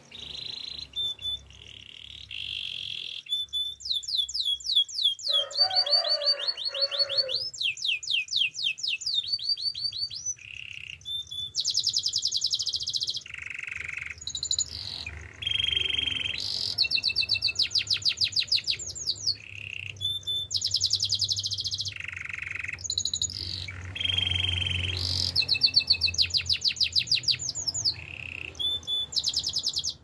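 Male canary singing a long, varied song of rolling trills: each phrase is a fast run of repeated notes, and the pitch changes from phrase to phrase, with short pauses between them.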